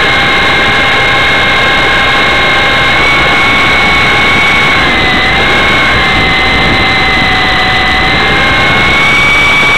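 Blade CX2 coaxial electric RC helicopter's motors and rotors whining steadily, heard close up through the camera mounted on it. The pitch dips a little twice midway and rises again near the end as the throttle changes in flight.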